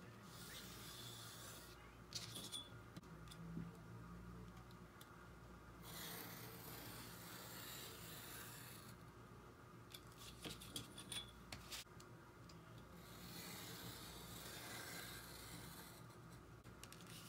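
Pencil scratching marking lines on mat board along a steel ruler, in three stretches of strokes. Between them the ruler and mat board are shifted and set down on a cutting mat with light clicks and taps.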